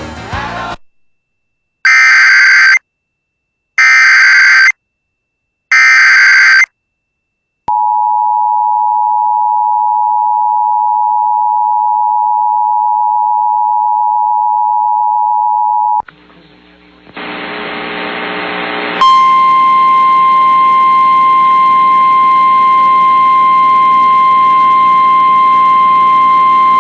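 Emergency Alert System broadcast: three one-second bursts of SAME digital header tones, then the two-tone EAS attention signal held steady for about eight seconds. After a few seconds of off-air radio hum, a single steady weather-radio warning alarm tone sounds over background hiss.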